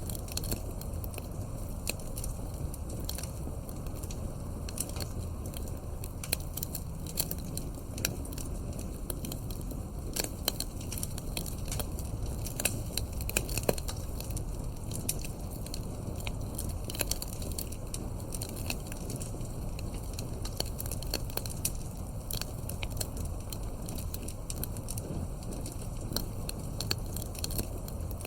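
Wood fire crackling: irregular sharp pops and snaps from burning logs over a steady low rumble of the flames.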